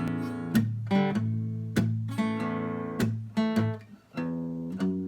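Acoustic guitar strumming chords in a steady rhythm, with a brief gap about four seconds in.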